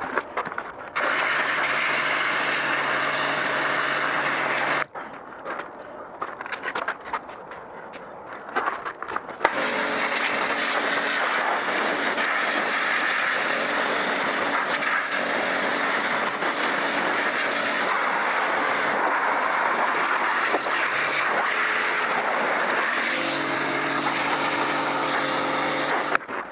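Pressure washer running, its jet spraying against a bicycle's chainset and wheels to blast off oily crud: a steady hiss with a motor hum for about four seconds, a pause of a few seconds, then spraying again steadily until just before the end.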